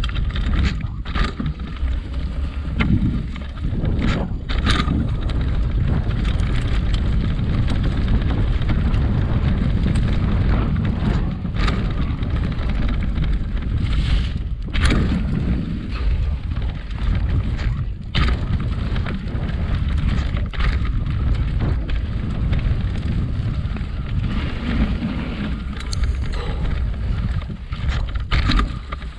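Mountain bike riding fast down a leaf-covered dirt trail: wind buffeting the microphone, tyres rolling over dry leaves and dirt, and the bike rattling and knocking sharply over bumps and roots many times.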